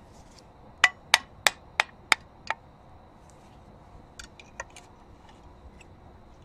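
Six sharp knocks in quick succession, about three a second, followed a couple of seconds later by a few lighter clicks.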